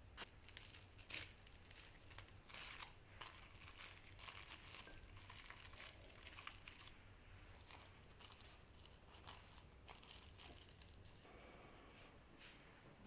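Plastic cling wrap crinkling faintly as hands press it down into a glass bowl of chocolate glaze. There are dense sharp crackles for the first several seconds, thinning out toward the end.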